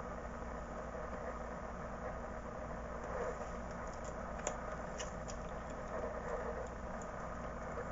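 Steady background hum, with a few light clicks about four to five seconds in from a small screwdriver driving in the screws that hold a laptop hard drive in place.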